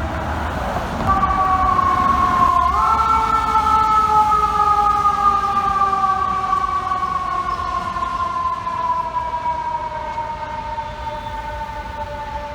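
Fire truck siren sounding, its wail stepping up in pitch a few seconds in and then sliding slowly and steadily downward, over a low rumble of traffic.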